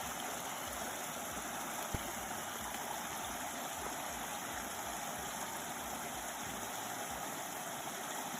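Steady rushing noise with a single light knock about two seconds in.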